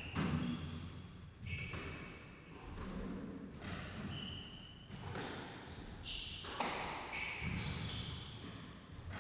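Squash rally: the ball cracking off rackets and walls roughly once a second, with short high squeaks of court shoes on the wooden floor as the players lunge and turn.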